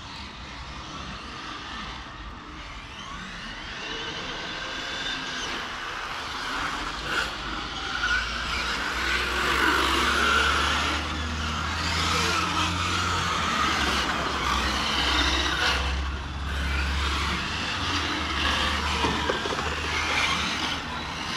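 Brushless electric radio-controlled cars running on a track, their motors whining, the pitch rising and falling with the throttle.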